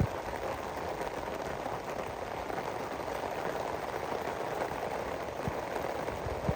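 Steady rain falling, with now and then a heavier drop tapping close by.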